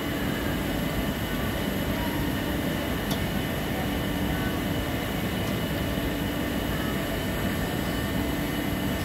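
Steady machine hum from a Weiler DZ 42 CNC lathe standing powered up, with a few constant tones held at an even level.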